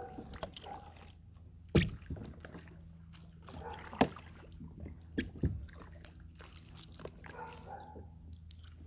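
Kayak paddling: water sloshing at the paddle strokes, with a few sharp knocks about two, four and five seconds in.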